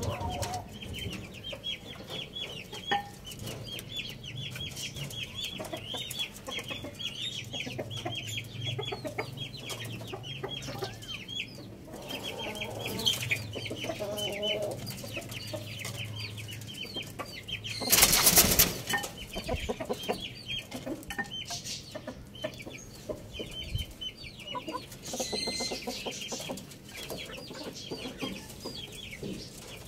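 Chickens clucking, over a continual run of short, high chirps. About two-thirds of the way through comes one loud, rough burst lasting about a second.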